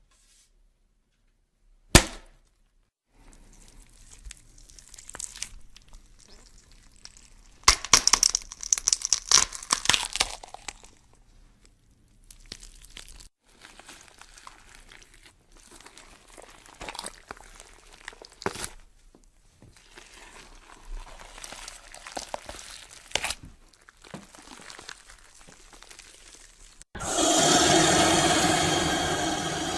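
A string of horror sound effects: a single sharp hit about two seconds in, then a long run of cracking, crackling and breaking sounds, densest about eight to ten seconds in. Near the end a loud, continuous rushing noise starts suddenly.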